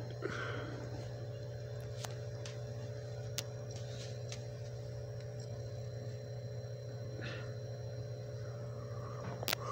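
Steady electrical mains hum picked up in the room, with a few faint clicks, the sharpest one near the end.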